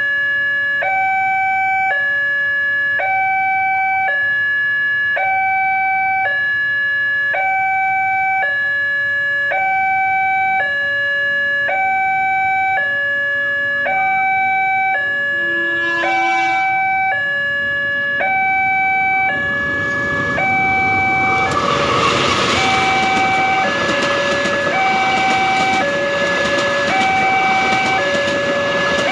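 Railway level-crossing alarm sounding from its pole loudspeaker, a two-tone signal switching between a high and a low note about every two-thirds of a second. A brief horn sounds about halfway through, and from about two-thirds of the way in a passenger train hauled by a CC 201 diesel locomotive runs past, its wheel and rail noise rising loud under the alarm.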